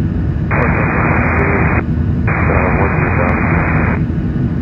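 Two bursts of radio static on the air traffic control frequency, each lasting a second or two, the second carrying faint garbled voice. Under them runs the steady low rumble of the Boeing 737-900's cabin and engines in the climb.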